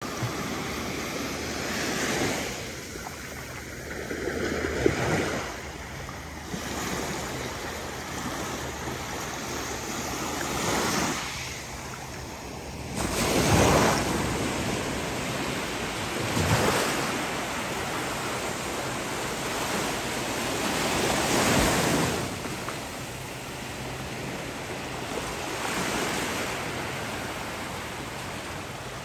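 Ocean surf: small waves breaking and washing up onto a sandy beach, the rush of water swelling and ebbing every few seconds, loudest a little before halfway through.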